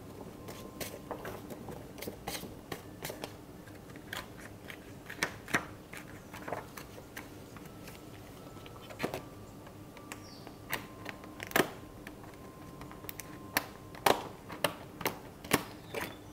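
Paper sheets being pressed onto a disc-bound planner's metal discs and handled: an irregular run of light clicks and snaps with paper rustling, more frequent near the end.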